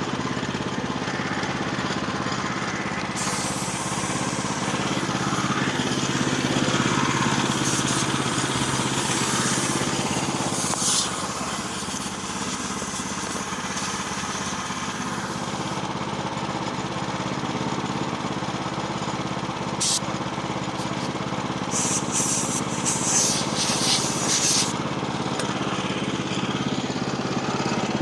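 Woodland Mills HM122 portable bandsaw sawmill's gasoline engine running steadily. A hissing noise comes over it from about three seconds in until about halfway, and again in short bursts near the end.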